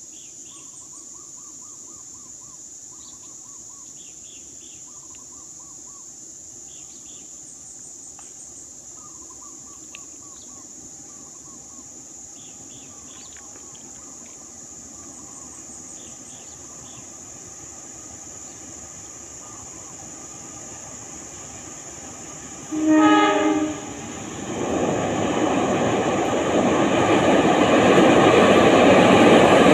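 Insects and chirping calls in the background, then about 23 seconds in a diesel locomotive sounds its horn in one blast of about a second. After the horn, the noise of the locomotive and its wagons grows steadily louder as the train approaches.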